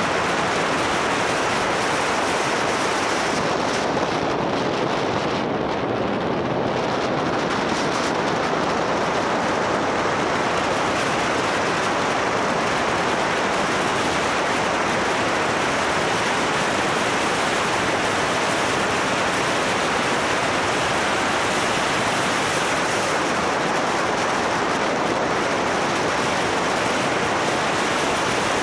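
Steady rush of wind and road noise from a moving motorcycle, blowing across the camera's microphone.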